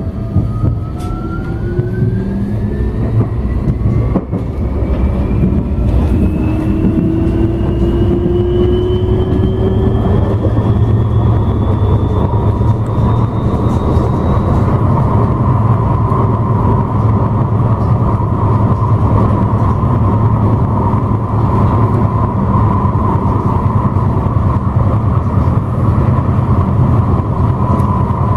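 Tram running, heard from inside the passenger saloon: a steady low rumble with a traction-motor whine that rises in pitch as it accelerates over the first fourteen seconds or so, then holds one steady pitch as it cruises.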